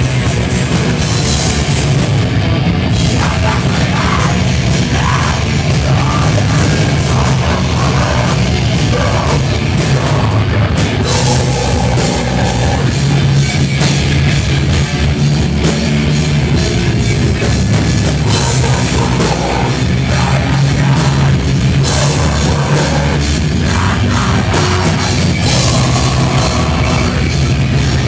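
Heavy metal band playing loudly without a break: distorted electric guitar over a drum kit.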